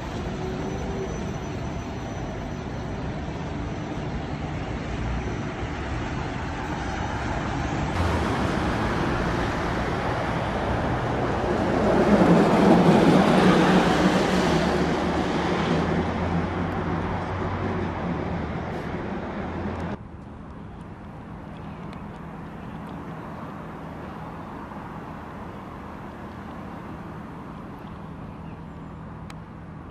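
Road traffic noise, with a vehicle passing close by about halfway through, building to the loudest point and then fading. After a sudden drop, a quieter steady outdoor rumble of engines and traffic.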